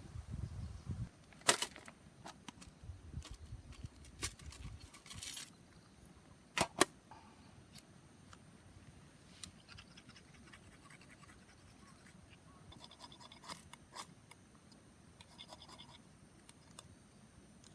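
Scattered sharp clicks, taps and short scrapes of small objects being handled, the loudest about a second and a half in and two close together about two-thirds of the way through, with low rumbling handling noise at the start.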